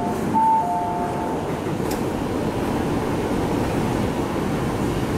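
Steady rumble and hum inside an MTR IKK-train car at a station platform, with a two-note electronic chime, high then low, sounding and dying away in the first second or so.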